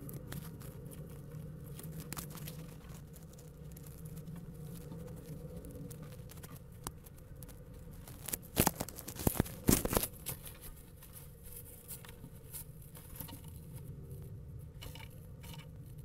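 Kestrels scratching and shuffling about in a nest box, heard through a nest camera's microphone over a steady low hum. There is a cluster of loud scrapes and clicks about nine seconds in.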